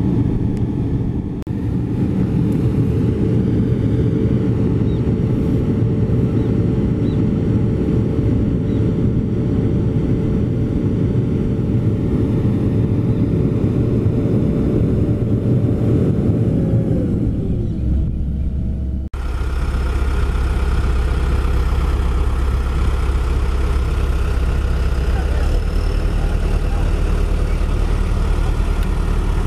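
Hamm 3516 road roller's diesel engine running with a steady drone, its revs winding down about 17 seconds in. After an abrupt cut, a heavy diesel engine idles steadily.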